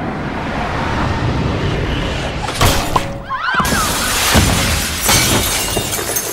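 A glass basketball backboard shattering under a slam dunk: a sharp hit about two and a half seconds in, then the glass bursting and the shards showering down, over background film music.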